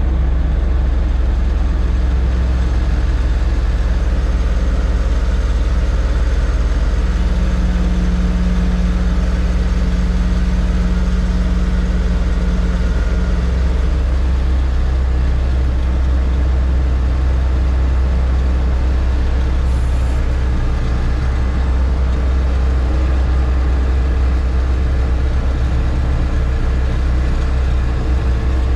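Heavy equipment's diesel engine running steadily with a strong low drone, its tone shifting slightly partway through.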